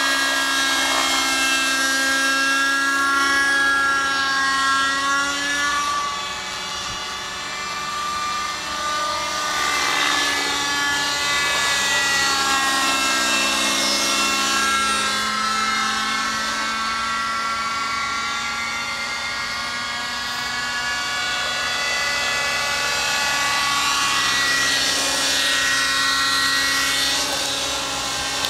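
Thunder Tiger Raptor 50 RC helicopter in flight, its nitro two-stroke glow engine and rotor running at high revs. The pitch rises and falls as it manoeuvres, and it grows a little quieter about six to nine seconds in.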